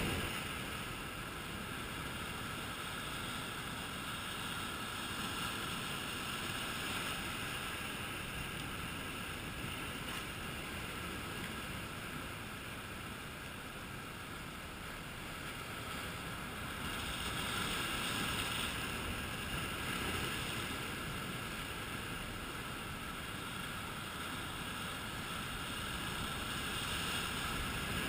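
Sea surf washing and breaking over shoreline rocks, a steady rushing wash that swells twice, once past halfway and again near the end.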